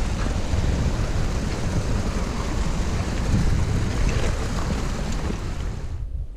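Small mountain stream rushing and splashing over rocks, mixed with wind buffeting the microphone. The water sound cuts off abruptly about six seconds in, leaving only low wind rumble.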